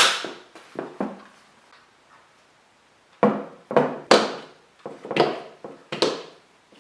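A series of sharp knocks, like a utensil or pan striking a bowl, board or counter: a few at the start, a pause of about a second and a half, then seven more about two a second.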